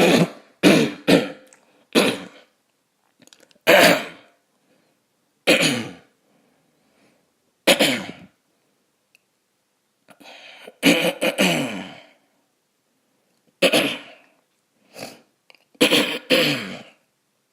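A man clearing his throat again and again, some clears close to a cough: a dozen or so short clears spaced about one to two seconds apart, with a longer bout about eleven seconds in.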